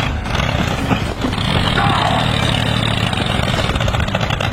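Small vehicle engine running steadily, with a faint falling squeal about two seconds in.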